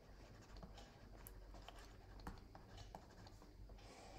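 Near silence with faint, scattered ticks of a stylus tapping and sliding on a tablet during handwriting.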